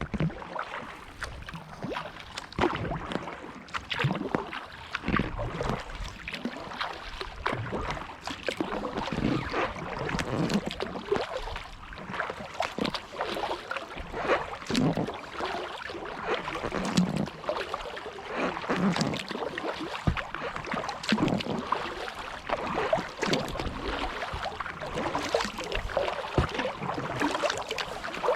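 Kayak paddle strokes in the water, a steady run of splashes and drips that swells about every two seconds as each blade dips.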